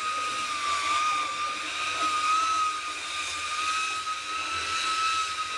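Handheld electric belt sander running steadily against wood, a constant high motor whine over the rasp of the belt on an ash-and-poplar paddle.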